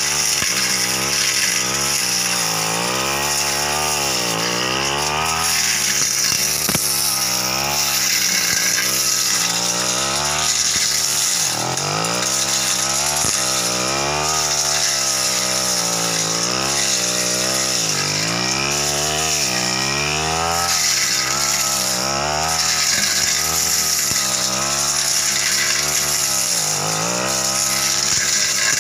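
Petrol brush cutter running hard while clearing dense scrub. Its engine speed rises and falls over and over, dropping as the blade cuts into the growth and revving back up, with deeper dips twice.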